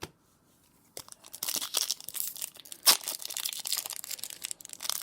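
Foil wrapper of a Pokémon TCG booster pack crinkling and tearing as it is opened by hand, starting about a second in, with a sharp crackle near three seconds.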